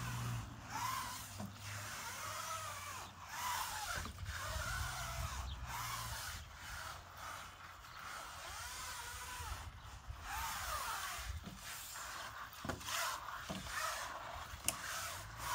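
Water-fed brush with pure water flowing through it scrubbing a window screen: a hissing scrub that comes in strokes, with short breaks between them about every second.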